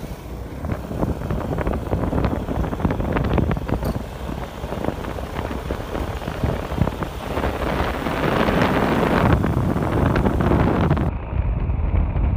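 Wind buffeting the microphone of a camera carried on a moving motor scooter, with a low road-and-engine rumble under it.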